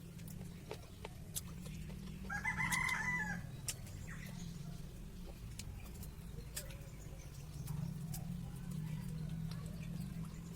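A rooster crows once, about two seconds in, in a single call lasting about a second. A steady low hum and scattered small clicks run beneath it.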